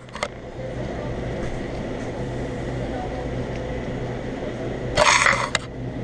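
Self-serve soda fountain dispensing into a large paper cup over a steady low hum, with a short loud rush of noise about five seconds in.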